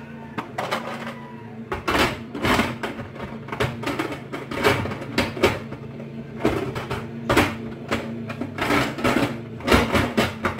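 Lid of an electric pressure cooker being set onto the pot and turned into place: a run of irregular knocks, clicks and scrapes as it seats.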